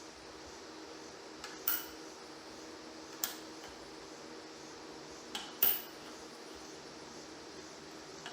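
Steel coin blanks clinking as they are handled, a handful of sharp metallic clicks with a short ring, the loudest a little past halfway, over a faint steady machine hum.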